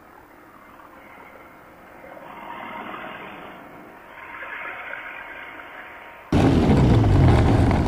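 Quicksilver ultralight's engine bursting into life about six seconds in and running loudly after a few seconds of faint rustling.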